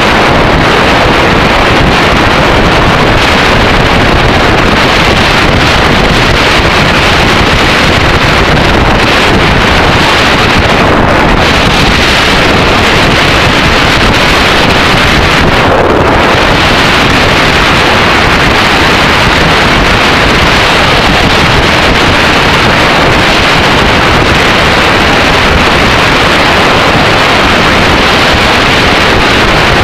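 Loud, steady wind rush on the microphone of a camera riding on a Yamaha XT600E motorcycle at road speed.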